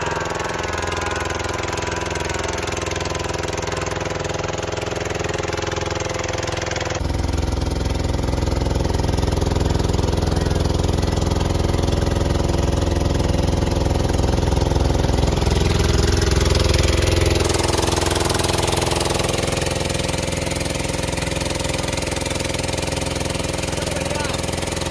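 A motorboat's engine running steadily under way on a river, a little louder from about seven seconds in until near eighteen seconds.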